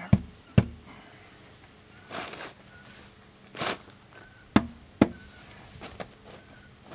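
Sharp wooden knocks as a round plywood form is handled and bumped into place: two about half a second apart near the start and two more about four and a half seconds in, with two short rustles in between.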